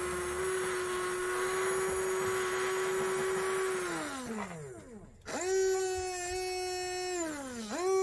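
Small brushed electric RC car motor spinning freely at full throttle, a high steady whine. About four seconds in it winds down to a stop, then it is throttled up again sharply, held, wound down, and revved up once more near the end. This is a test of the replacement motor's speed, which is clearly higher RPM.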